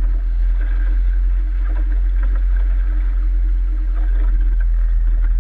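Boat's outboard motor running steadily at trolling speed, a loud low drone with water and wake noise over it, picked up through the boat-mounted camera.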